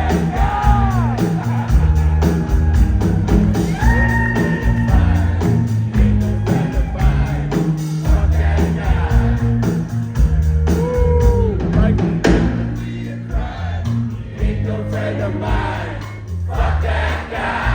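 Live rock band playing with a steady drum and bass beat, electric guitar and some singing.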